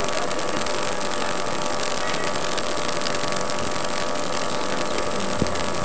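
Steady, even hiss with a thin, constant high whine over it and one faint click about five and a half seconds in.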